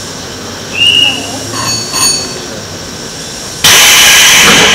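An Eizan Electric Railway train standing at a station: a low steady background with a short high beep about a second in, then a sudden loud, steady hiss cuts in near the end.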